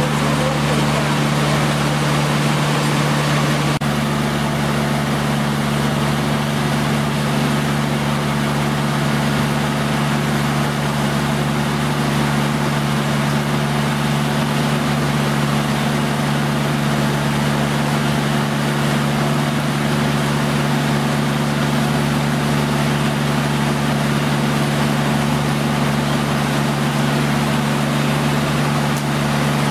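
Inboard engine of a river cruise boat running steadily under way, heard from on board: a constant drone with a strong low hum and an even hiss above it.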